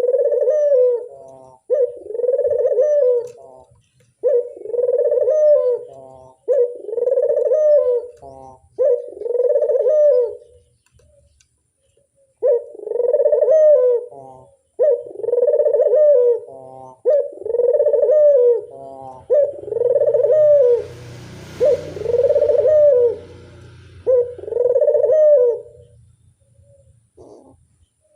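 Barbary dove (burung puter) cooing over and over, each coo about a second long, with a short break about eleven seconds in. A brief rushing noise sits under the coos around twenty-one seconds, and the cooing stops a couple of seconds before the end.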